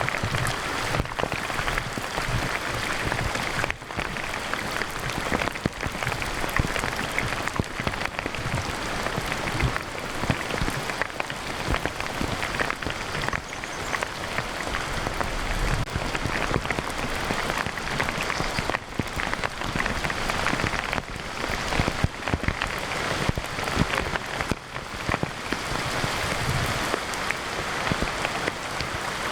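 Heavy rain pouring down in a steady, dense hiss, with gusts of wind now and then buffeting the microphone.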